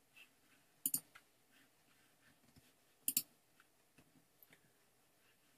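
Computer mouse clicked in two quick double clicks, about two seconds apart, each a pair of sharp clicks. Between them there are only a few faint ticks against near silence.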